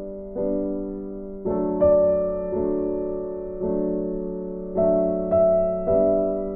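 Background piano music: slow, sustained chords struck anew about every half-second to second, with no beat.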